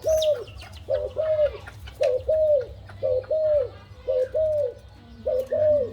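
A dove cooing: a repeated two-note call, each note rising and falling in pitch, given about once a second six times over.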